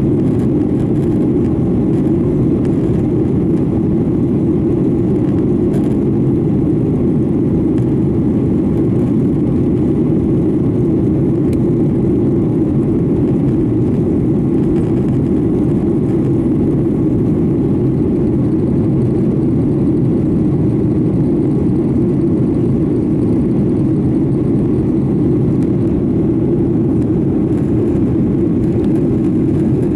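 Steady cabin drone inside a Boeing 737-900ER: its CFM56-7B turbofan engines and the airflow past the fuselage, an even, deep rumble that does not change.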